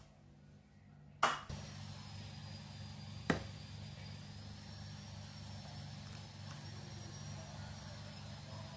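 Two sharp knocks of a plastic ladle on cookware, one about a second in and a higher click a couple of seconds later, over a steady low hum with a faint high whine.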